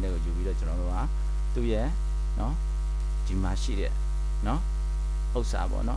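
Steady low electrical mains hum, the loudest sound, with a voice speaking at times over it.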